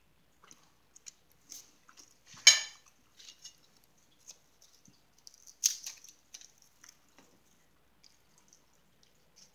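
Crackers being handled at a table: scattered small clicks and crunches, with two louder, sharp crackles, one about two and a half seconds in and one a little after five and a half seconds.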